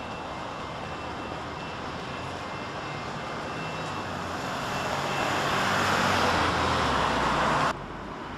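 Street traffic noise: a vehicle's rushing sound swells steadily louder, then cuts off abruptly near the end.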